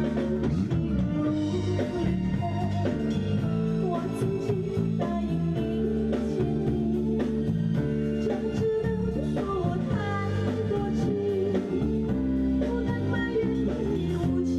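Music with guitar accompaniment and a singing voice carrying a melody.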